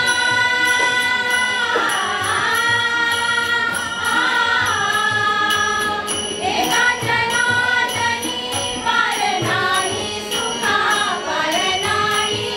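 Background music: a singing voice holding long notes that slide up and down, over a light, steady tapping beat.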